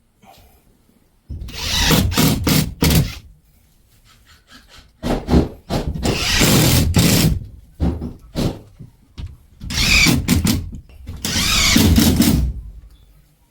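Cordless drill driving screws into a drywall sheet, running in about five short bursts of one to two seconds that stop sharply as each screw seats.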